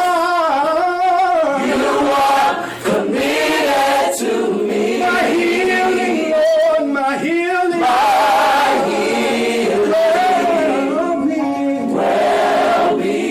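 Church choir singing, with long held notes that waver in pitch.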